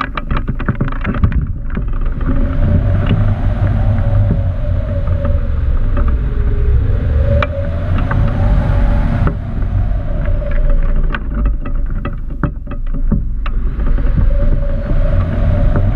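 Air rushing over a camera mounted on a hang glider's wing frame in free flight: heavy wind buffeting on the microphone with crackling rattles. A whistling tone rises and falls in pitch, swinging most widely about halfway through.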